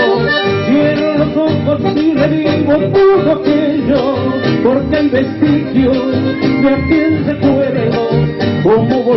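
A live band playing an instrumental passage of a Latin dance song, with melody over a steady beat.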